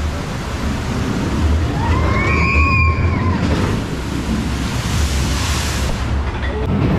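A splash-down ride car on rails hits a pool of water, throwing up a big rushing splash of spray in the middle of the clip over a steady rushing, rumbling noise. A brief high-pitched tone that rises and falls comes about two seconds in.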